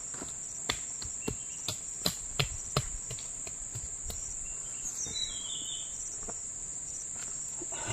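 A steady high-pitched drone of insects. It is crossed in the first three seconds by a series of sharp clicks and snaps.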